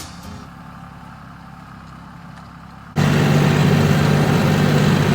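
Tractor engine running steadily, cutting in abruptly about three seconds in, with a strong low hum.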